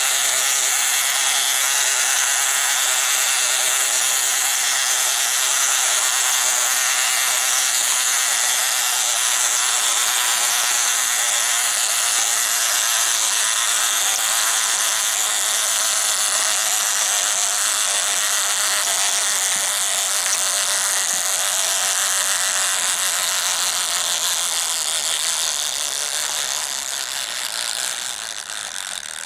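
Wind-up fishing game toy running: its plastic gear mechanism clatters and whirs steadily as the board turns and the fish mouths open and close, fading near the end.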